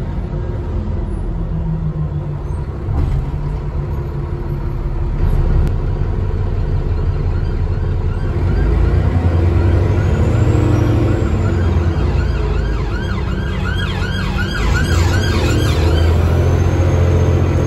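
Alexander ALX400 double-decker bus engine running under way, heard from on board. About halfway through an emergency vehicle's siren joins it, yelping in quick rising-and-falling cycles for several seconds. A faint high turbo whistle rises and falls twice.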